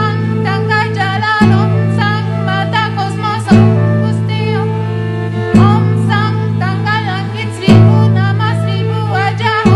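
World-music ensemble playing: a sustained low chord that changes about every two seconds, each change struck with a sharp strum, under a gliding, wavering melody line.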